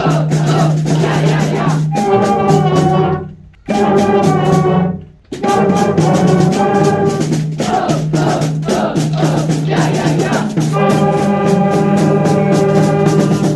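Beginning school concert band playing: flutes, clarinets, saxophones, trumpets and trombones holding loud chords over a steady drum beat, with two short abrupt cutoffs about three and a half and five seconds in.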